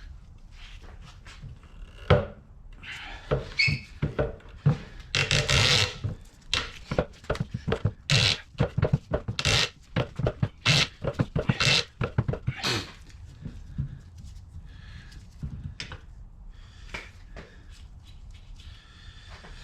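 Irregular knocks and clanks of tools and metal parts being handled, with a quick run of clicks from about 8 to 13 seconds in; the noise dies down after that.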